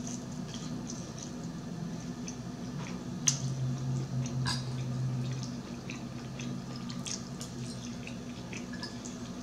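Close-miked chewing of fried chicken, with many small wet smacks and crisp clicks scattered throughout. A low steady hum rises for about two seconds around the middle.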